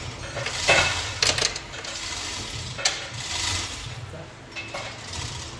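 Overhead hoist lowering a battery pack on its chain: a steady mechanical hum with a few short clanks along the way.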